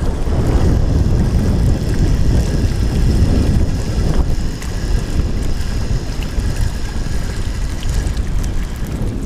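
Wind buffeting an action-camera microphone: a steady, loud low rumble with no clear rhythm.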